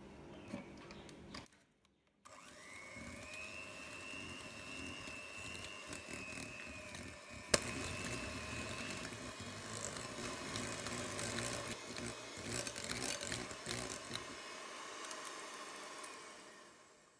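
Electric hand mixer beating cream cheese and sugar in a glass bowl: the motor starts about two seconds in with a short rising whine and then runs steadily, with a sharp tap midway and small clicks and rattles of the beaters against the bowl. It fades out near the end.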